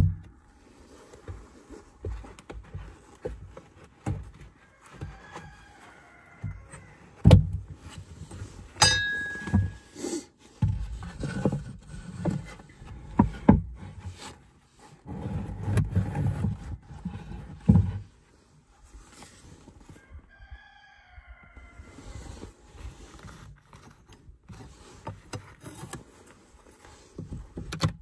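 Metal hive tool scraping propolis off the wooden top bars and frame rests of a Layens horizontal beehive, so that the frames sit more easily. Wooden frames and the tool knock against the hive body, with sharp knocks and bouts of scraping in the first half, then quieter, scattered scraping and clicks.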